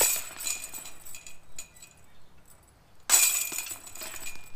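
Disc golf discs striking the chains of a Veteran basket twice, about three seconds apart. Each hit sets the chains jangling, ringing on for about a second before dying away.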